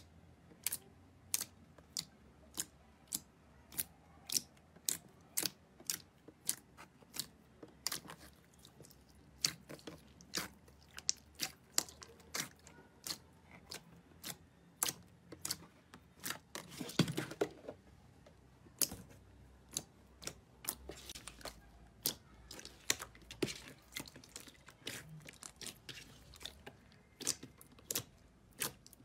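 Slime being poked and pressed by hand in a plastic tub, giving sharp clicking pops about one to two a second, with a denser run of pops about two-thirds of the way through.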